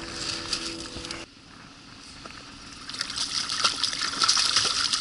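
A hooked young taimen thrashing and splashing at the surface beside the boat, the splashing building up from about three seconds in. Before that, a steady hum stops abruptly just over a second in.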